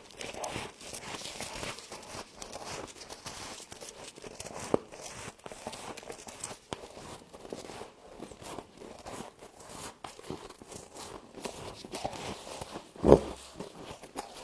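Close-up crunching and chewing of humidifier frost: irregular crisp crunches and scrapes as the frost is bitten and chewed. A single loud knock near the end.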